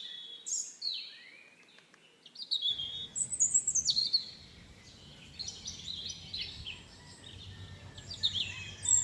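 Birds chirping: a run of short, quick chirps that slide down in pitch. A steady low background rumble comes in about three seconds in.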